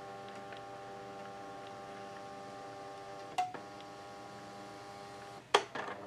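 Brother IntelliFax 620 thermal fax machine printing, its paper-feed motor giving a steady whine of several tones. There is a short click about three and a half seconds in; near the end the feed stops and a sharp click follows.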